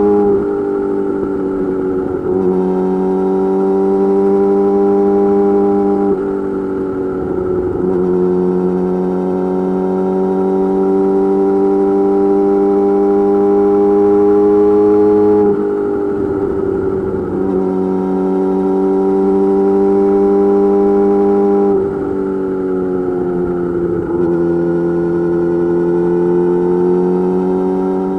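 Yamaha YZF-R6 inline-four engine through an M4 GP slip-on exhaust, heard from the rider's seat while cruising at fairly steady revs. The note dips and breaks briefly several times as the throttle is rolled off and back on, about eight times in all.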